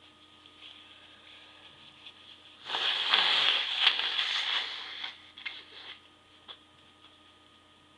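A stifled sneeze: a sudden burst of breath about three seconds in, lasting about two seconds, with a short falling vocal note at its start, followed by a few faint short sounds.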